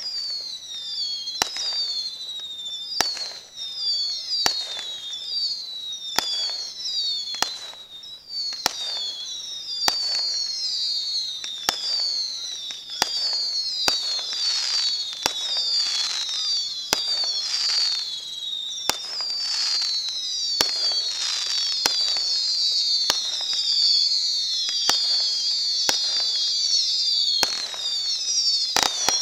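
Fireworks display: many whistling fireworks sound at once as a dense layer of overlapping falling whistles. Sharp bangs cut through them about every second and a half.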